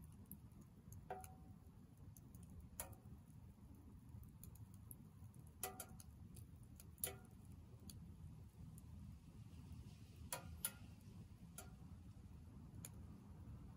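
Firewood burning in a Soomloom MECA mini wood stove, crackling with sparse, irregular sharp snaps and ticks, a handful of them louder than the rest, over a faint low steady noise.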